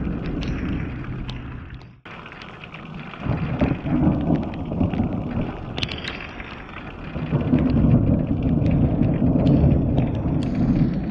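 Thunder rumbling in rolling waves, with the loudest roll swelling about seven seconds in, just after a lightning strike. Rain ticks on the camera throughout.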